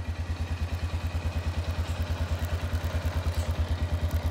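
An engine idling with a fast, even low putter.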